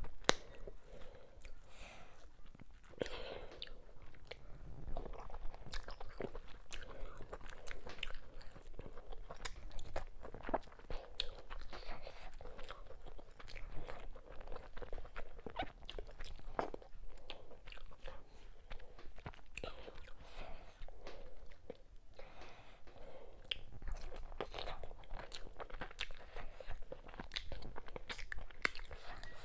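Close-miked chewing and mouth sounds of a person eating ogbono soup and fufu by hand: a continuous run of small wet clicks of lips, tongue and teeth, with fingers being sucked.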